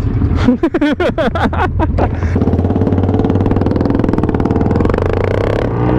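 Motorcycle engine running as the bike pulls away. About half a second in there is a second or so of choppy, uneven noise, then a steady engine beat that rises a little in pitch near the end as the bike speeds up.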